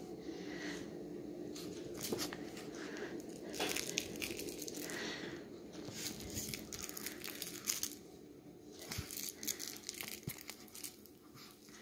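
Fabric rustling and crinkling in irregular scuffs and crackles: a chihuahua shuffling about in a fleece dog bed and handling a plush toy.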